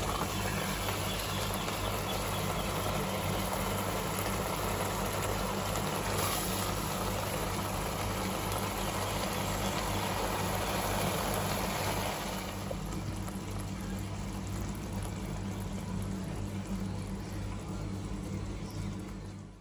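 Thick onion-tomato paneer gravy simmering and bubbling in a pan on the stove, over a steady low hum. The bubbling grows softer about twelve seconds in, then the sound cuts off just before the end.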